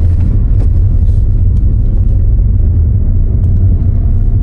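Toyota Auris driving slowly on its freshly fitted second-hand gearbox: a steady low engine and road rumble with no grinding or scraping.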